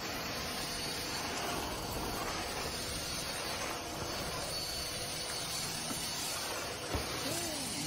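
Stick vacuum cleaner running on a wooden floor: a steady, even hiss. A short wavering tone comes near the end.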